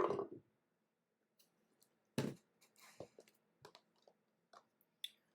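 Scattered clicks and short rustles of trading-card boxes being handled, with a sharper click about two seconds in.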